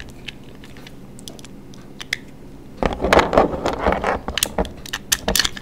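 Small plastic Beyblade parts (launcher and ripcord) being handled: a few faint ticks, then rustling and clattering from about three seconds in, and a run of sharp plastic clicks near the end.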